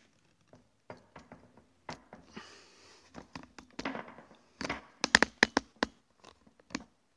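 Handling noise as a DSLR on its tripod is moved into place: scattered knocks and clicks with some rustling, and a quick run of sharp clicks about five seconds in.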